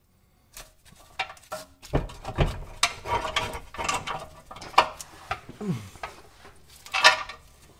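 Irregular metallic clicks, clanks and scraping of a steel U-bolt being worked into place around a rusty crossmember under a Subaru WRX, with a dull knock about two seconds in.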